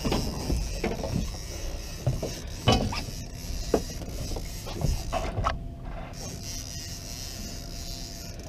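Spinning fishing reel working against a hooked fish: mechanical clicking of the reel's gears and drag, with a few sharp knocks.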